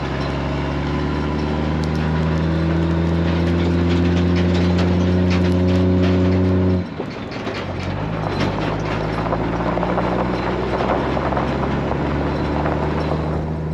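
Engine of a farm vehicle pulling with a steady note that climbs slowly in pitch, then drops off abruptly about seven seconds in, as when shifting gear. It then runs on at a lower, rougher note with scattered rattles and knocks.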